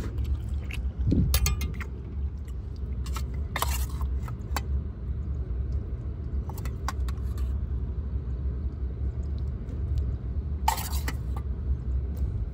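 Steady low vehicle rumble, with scattered metallic clinks and clatters of steel lunch containers being opened and handled.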